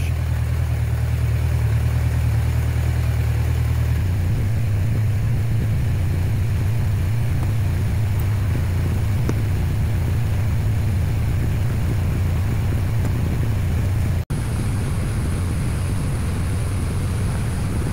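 Kawasaki Concours ZG1000's liquid-cooled inline-four engine idling steadily while it warms up after a cold start.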